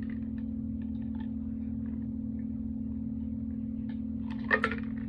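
A steady low hum with faint, scattered wet clicks of someone chewing a sandwich, and a short louder mouth sound about four and a half seconds in.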